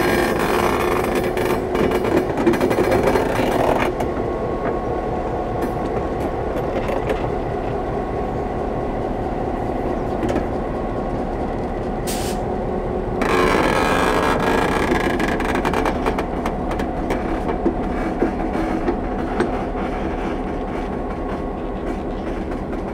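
Slow train of flat wagons and a DBR class diesel locomotive rolling past at close range, its wheels clicking and clanking over the rails, with a steady mechanical run underneath. It is louder at the start and again a little past halfway.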